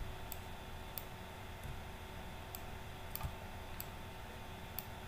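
Faint, scattered clicks of a computer mouse and keyboard at a desk: about seven short, sharp clicks spread unevenly over a few seconds, over a low, steady electrical hum.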